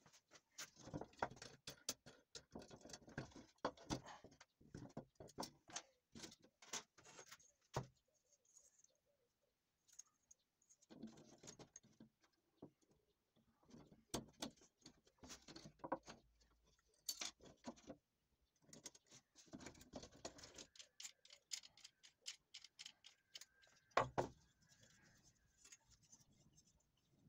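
Faint, irregular metallic clicks and rattles of a steel saw frame and its toothed blade being handled and adjusted on wooden floorboards, with one sharper knock near the end.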